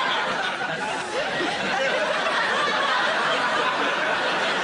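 Studio audience laughing: a long, steady laugh from many people.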